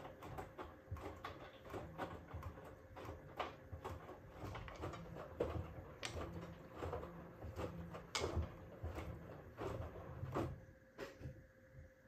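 Hoover H-Wash 350 front-loading washing machine's drum turning and tumbling a load of towels, with irregular soft thumps and knocks as the laundry drops. The drum comes to a stop near the end, and the thumping ceases.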